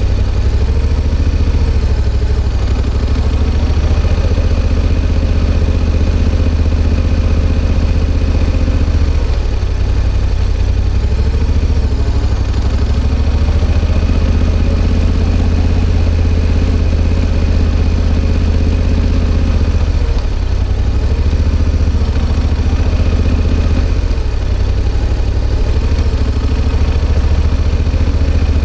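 Yamaha XSR700's CP2 parallel-twin engine running at low revs through an SP Tadao Power Box Full RS aftermarket full exhaust while riding slowly, a steady low exhaust note. The revs rise and fall a little several times.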